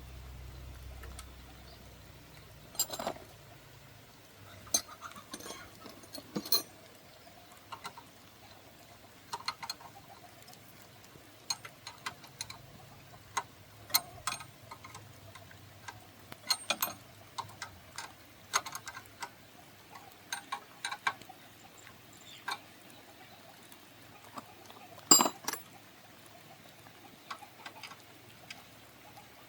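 Irregular sharp clicks and clinks of metal tools and engine parts being handled, with one louder clank near the end.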